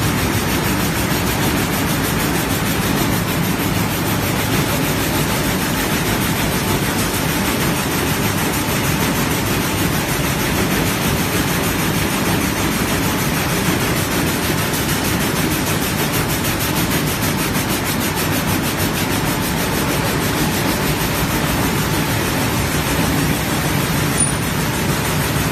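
Haiying air-jet jacquard loom running at about 384 rpm, a loud steady rapid clatter with hiss, among other looms running in the weaving shed.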